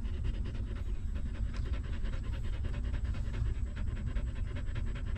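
A mother dog panting quickly and evenly beside her nursing newborn puppies, over a steady low rumble.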